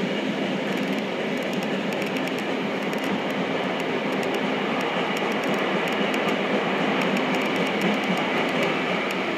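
Tokyo Metro Namboku Line subway train running through a tunnel, heard from inside the car: a steady rolling rumble of wheels on rail, with faint rapid ticking over it.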